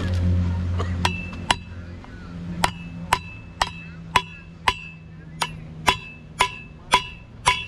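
A hammer striking metal about twice a second, a dozen blows in all, each ringing briefly. A low steady hum underneath fades out about two seconds in.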